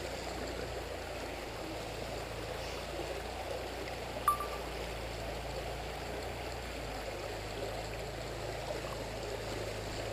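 Shallow, rocky creek water running and trickling steadily over stones. One short, sharp blip sounds about four seconds in.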